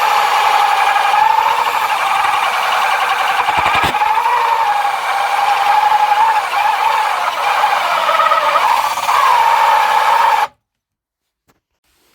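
Corded electric drill running with a bit cutting a hole through the wood of a nest box: a steady motor whine that wavers slightly in pitch under load, then cuts off suddenly near the end.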